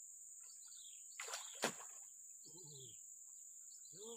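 A bird repeating a short falling chirp every second or two over a steady high-pitched insect drone. A brief rustle ending in one sharp click comes about a second and a half in and is the loudest sound.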